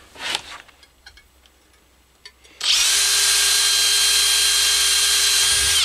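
Cordless drill boring a hole through a thin copper-coloured sheet-metal disc clamped in a vise. After a few faint handling clicks, the drill starts about two and a half seconds in, runs steadily with a whine and stops abruptly near the end.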